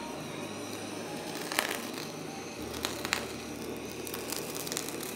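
Handheld kitchen gas torch running steadily as it flame-sears salmon nigiri (aburi), with a few sharp crackles about one and a half and three seconds in.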